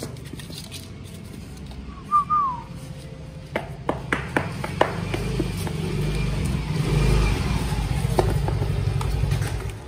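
A puppy gives two short high squeaks that fall in pitch. Then a low rumble swells for several seconds under scattered scratching clicks, and cuts off suddenly near the end.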